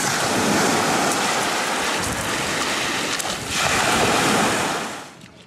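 Small Mediterranean waves breaking and washing up a pebbly beach, with some wind buffeting the microphone. The surf fades out near the end.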